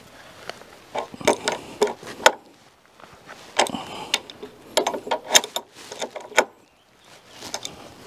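Rapid mechanical clicks and knocks from hand-tool work on a treated-timber girder. They come in two bursts, from about one to two seconds in and from about three and a half to six and a half seconds in, with a few more near the end.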